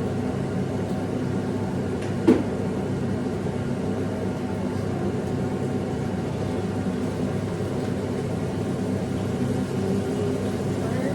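Kitchen exhaust fan over the stove running with a steady hum, with a single brief knock about two seconds in.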